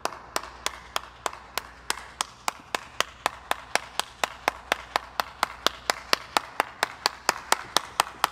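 One person clapping hands in a steady, even rhythm, about three claps a second, growing slightly louder towards the end.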